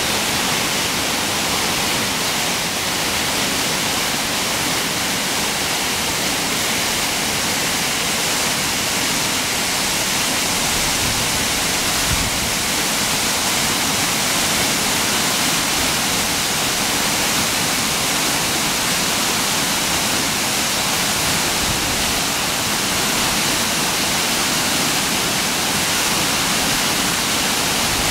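Mountain stream rushing as a steady, unbroken hiss, swollen with a high water volume after recent heavy rain.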